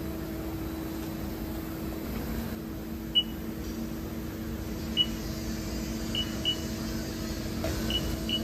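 Six short, high beeps from the Haas CNC lathe's control-panel keypad as keys are pressed, spaced irregularly from about three seconds in, over a steady low machine hum.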